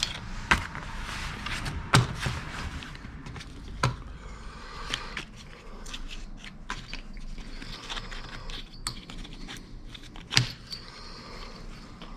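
Hands working on a Homelite Super 2 chainsaw's plastic housing and ignition coil: a few sharp clicks and knocks, with rustling and light scraping between.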